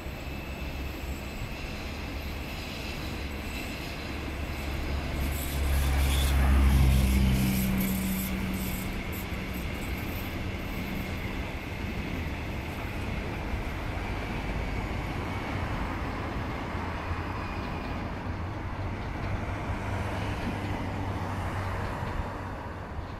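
Renfe series 465 Civia electric commuter train (built by CAF) passing slowly, with wheels running on the rails and a low electric hum. It grows loudest about seven seconds in, then settles to a steady rumble.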